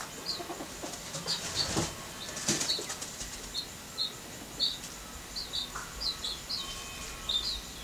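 Small birds chirping in short high notes, about two a second, with a couple of brief rustling bursts between one and three seconds in.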